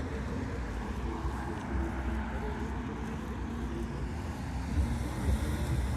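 City street traffic: cars driving on the road alongside, a steady low rumble that grows louder near the end.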